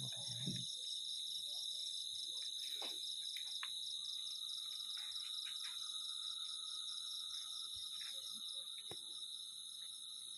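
Crickets and other night insects trilling in a steady, high-pitched chorus, one of them pulsing rhythmically. A lower steady trill joins about four seconds in.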